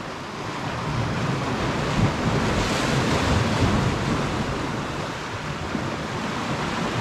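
Sea waves surging and breaking against shore rocks, with wind buffeting the microphone; one wave breaks loudest about three seconds in.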